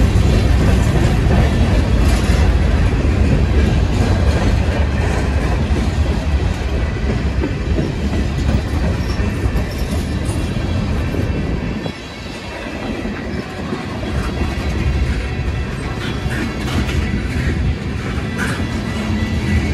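Norfolk Southern freight train rolling past: a steady, heavy rumble with scattered clicks of wheels over the rails. The sound drops suddenly about twelve seconds in, then builds again.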